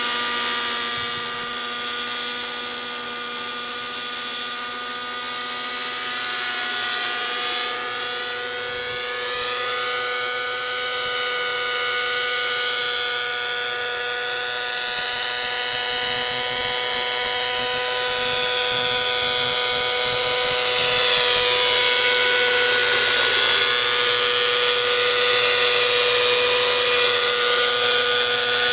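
Align Trex 600 radio-controlled nitro helicopter in forward flight, its OS 55 glow engine and rotors running with a steady high whine. The sound swells and fades as the helicopter passes and is louder over the last third.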